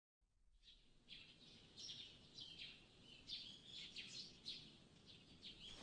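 Small birds chirping faintly: a run of short, high chirps that fall in pitch, starting about a second in and repeating every half second or so.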